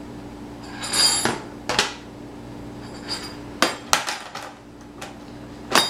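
Dishes and metal utensils clattering and clinking as a toddler pulls them out of a dishwasher: a series of uneven knocks and ringing clinks in small clusters, with loud ones about a second in, in the middle and near the end.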